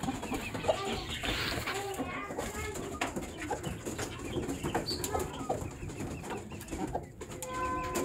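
Several chickens clucking with many short calls overlapping, a flock of hens and roosters kept in wire cages.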